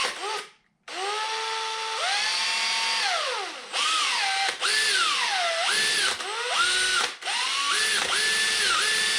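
Electric drill motor whining as its variable-speed trigger is squeezed and eased, pitch rising and falling, stopping briefly three times and starting again. The drill is spinning a Vespa speedometer's drive through a taped-on drill bit to work the freshly cleaned, formerly rusted mechanism free.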